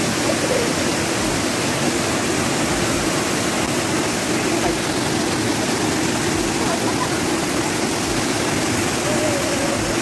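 Waterfall and the shallow rocky stream below it rushing steadily: a loud, even wash of falling and flowing water.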